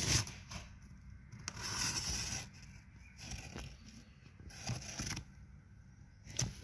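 Cardboard and paper rustling and scraping in short bursts, with a longer rustle about two seconds in, as the box holding newspaper and shredded paper is handled.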